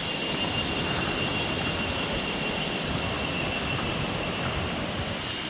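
Steady rushing of stream water at a forest crossing, even and unbroken, with a thin steady high-pitched tone above it.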